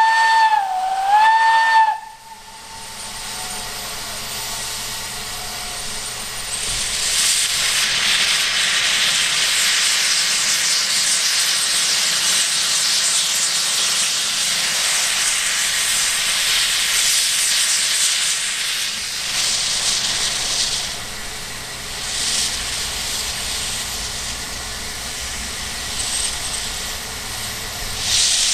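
Narrow-gauge steam locomotive gives two short whistle blasts in the first two seconds. A few seconds later a loud, steady hiss of steam from its open cylinder drain cocks sets in as it starts away, easing off somewhat later on with a few renewed surges.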